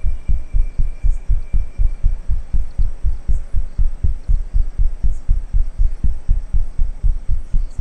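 Heartbeat sound effect: low double thumps repeating fast in an even rhythm.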